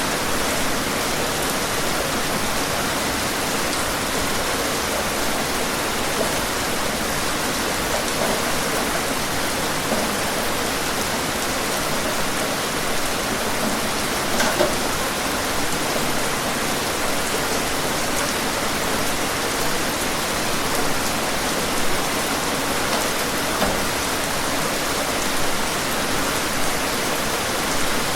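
Steady rain falling and pattering on surfaces, an even dense hiss with scattered individual drops standing out now and then.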